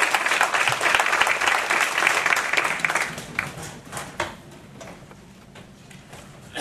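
Audience applauding, the clapping dying away about three seconds in and leaving a few scattered claps and small knocks.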